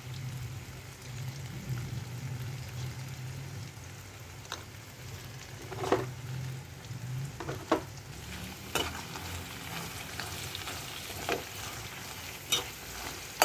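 Arbi (taro root) with spices frying in a pan, sizzling steadily, while a spatula stirs it and knocks or scrapes against the pan several times, mostly in the second half. A low hum runs under the first half and stops a little past the middle.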